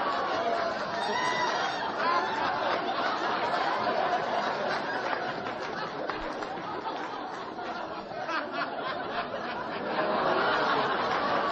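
Many voices chattering and talking over each other at once, with some snickering laughter mixed in.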